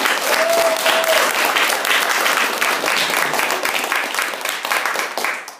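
Audience applauding, dense steady clapping that dies away near the end. A short held tone rises above it about half a second in.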